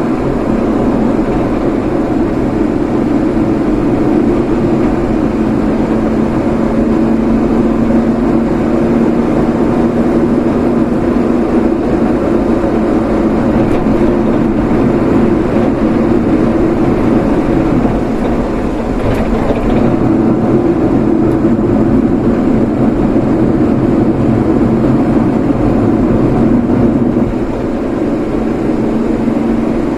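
Steady engine and road noise of a vehicle being driven, with a constant low hum; the level dips slightly a little past halfway and again near the end.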